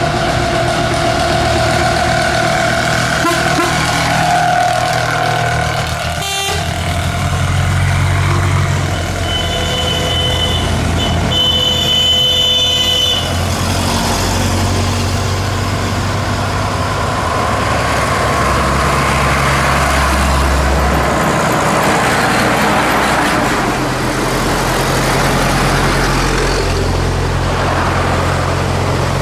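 A procession of old lorries driving past one after another, their engines rumbling and rising and falling as each goes by. A horn toots twice, briefly, about a third of the way through.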